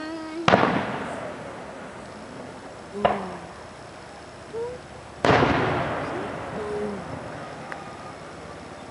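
Aerial fireworks shells bursting at a distance: a boom about half a second in, a weaker one near three seconds, and the loudest a little past five seconds, each trailing off in a rumbling echo for a couple of seconds.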